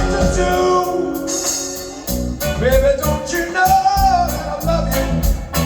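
Rock band recording playing: a steady drum beat and bass under held, sliding melody notes, with some singing.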